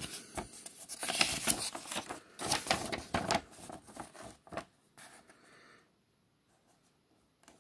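A folded paper instruction sheet being unfolded and flattened by hand: crisp paper rustling and crackling that stops about five seconds in.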